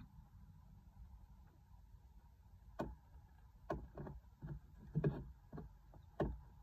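Roosting hens settling in a coop: a run of soft, irregular knocks and taps, about seven over the last few seconds, over a low steady hum.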